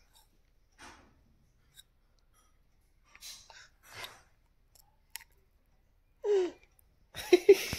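A baby mouthing and sucking on a cup, making soft wet mouth noises. About six seconds in comes a short vocalization that falls in pitch, then a few quick, louder baby sounds near the end.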